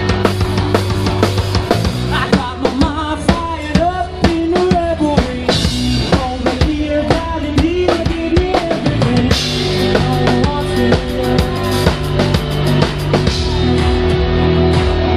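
Live band playing a song: a drum kit keeps a steady beat with kick and snare under held bass notes, while a wavering melody line carries over the top.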